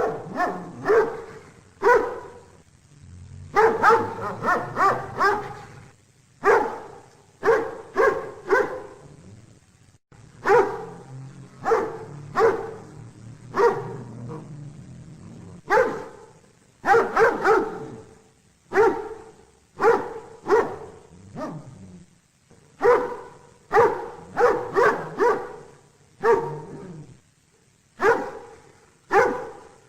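A dog barking over and over, in quick runs of several barks with short pauses between them.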